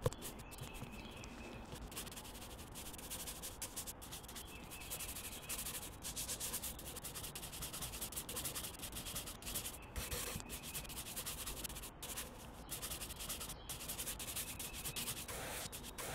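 Art tools scratching and rubbing on sketchbook paper in quick, irregular strokes, a choppy run of stroke sounds broken by several abrupt cut-outs.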